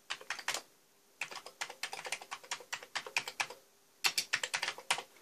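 Typing on a computer keyboard: rapid keystrokes in three runs separated by two short pauses.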